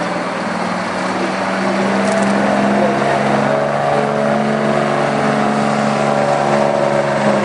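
Detroit Diesel 6-71 two-stroke diesel in a 1948 GMC AD 950 truck, running at low speed as the truck rolls closer. It is a steady drone that grows slightly louder and a little higher about halfway through.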